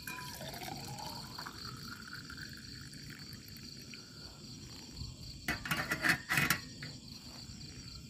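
Water poured into a small camping cook pot, the pitch rising as it fills, over steady chirping of crickets. A few loud knocks and clatters come about five and a half to six and a half seconds in.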